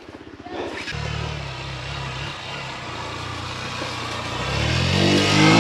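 Off-road motorcycle engine putting at low revs, then running steadily under throttle. Near the end it revs up, its note rising in pitch and getting louder.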